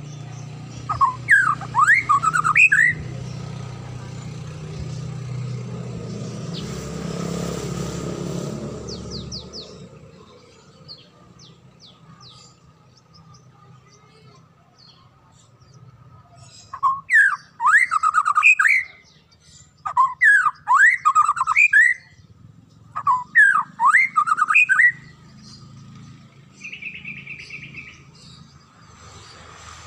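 White-rumped shama singing loud, clear phrases of quick rising whistled notes. One phrase comes near the start, then three more follow close together in the second half.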